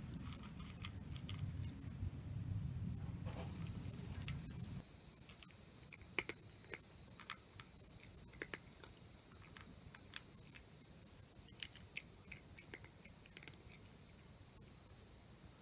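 A cat eating dry kibble from a plastic bowl: scattered sharp crunches and clicks. A steady high insect chirring sets in a few seconds in, and a low rumble fades out about five seconds in.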